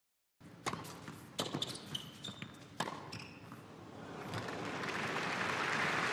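A tennis ball bouncing several times on an indoor hard court, four or five sharp, irregular bounces with a few shoe squeaks, then the arena crowd's hum swelling over the last couple of seconds.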